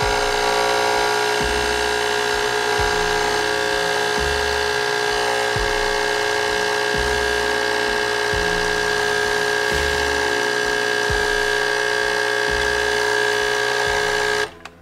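Nespresso capsule coffee machine's pump buzzing steadily as it pushes coffee out into the cup, with a low throb about every second and a half. It cuts off suddenly near the end as the brew finishes.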